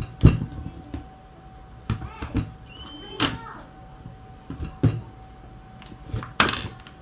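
Hollow clunks and knocks as a stripped Stihl 440 chainsaw body is turned over and set down on a wooden workbench, about six knocks, the hardest right at the start.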